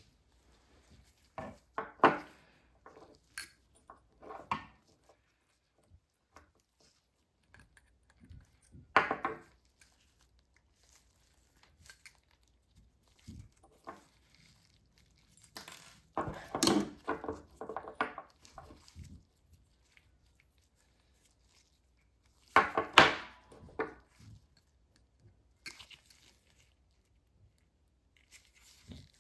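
Small metal handling sounds as 0.7 mm stainless steel clasp wire is bent and fitted against a dental model: scattered clicks, taps and scrapes in short clusters with quiet gaps between, the loudest near the start and about two-thirds of the way through.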